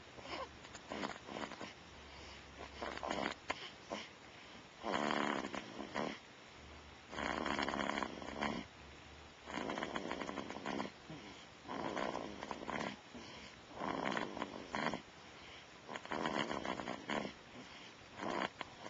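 Snoring of a sleeping month-old: regular noisy snores about every two seconds, each lasting about a second, louder after the first few seconds.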